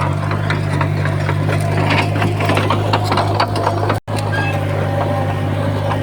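Komatsu D51PX bulldozer's diesel engine running steadily with a constant low drone, overlaid by irregular clattering and rattling. The sound cuts out for an instant about four seconds in.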